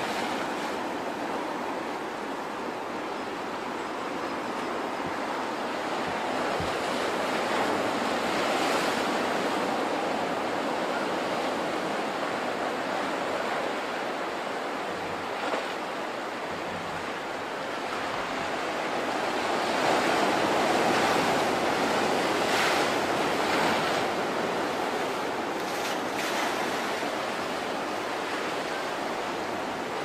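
Sea waves breaking and washing up the beach: a continuous rush of surf that swells and eases, loudest about two-thirds of the way through.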